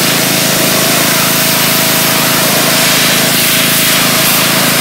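Pressure washer spraying a high-pressure water jet onto a vehicle's metal frame. The jet makes a loud, steady hiss over a steady hum from the washer's pump and motor.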